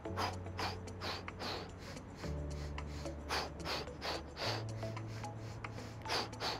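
A person doing rapid breathwork: sets of four sharp, quick sniffing inhales through the nose followed by four sharp puffed exhales out through pursed lips, about two or three breaths a second. Soft sustained background music chords, changing every couple of seconds, run underneath.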